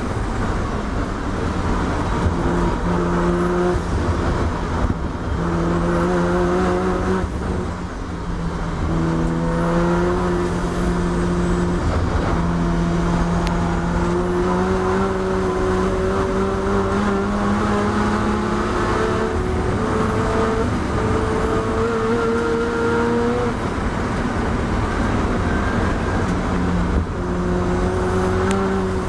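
Mazda RX-7 race car's rotary engine under hard load, heard from inside the cockpit. The engine note climbs and then steps back down several times with gear changes and lifts for corners, over a rough rumble of road and wind noise.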